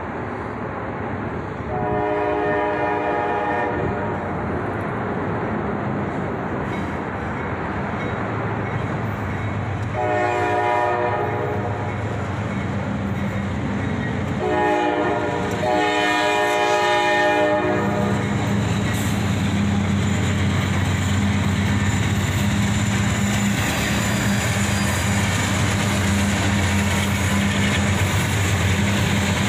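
Diesel locomotive horn sounding the grade-crossing signal: two long blasts several seconds apart, then a short one and a long one. After the last blast the lead locomotive, a CSX CM44AH, passes close by, its diesel engine running loud and steady.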